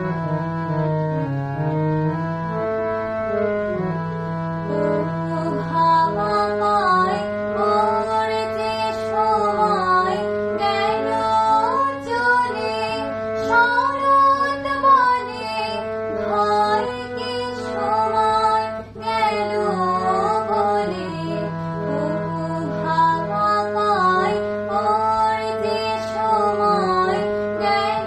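A young girl singing a Bengali song to her own harmonium accompaniment. The harmonium plays alone with held reed notes for the first five seconds or so, then her voice comes in with the melody over it.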